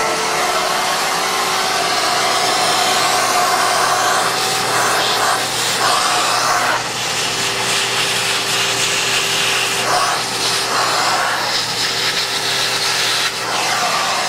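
Shop-Vac wet/dry vacuum running loud and steady, a steady motor hum under a rushing hiss of air that shifts in texture a few times.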